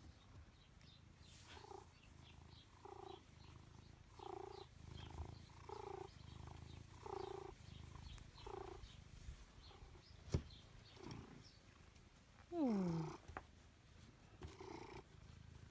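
Domestic cat purring close by, the purr swelling and fading with each breath about every one and a half seconds. A single falling meow comes near the end.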